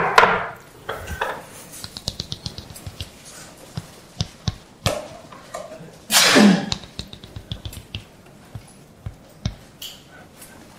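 Chalk on a chalkboard: a long run of small, quick taps and scratches as formulas are written, with two louder scrapes, one at the start and one about six seconds in.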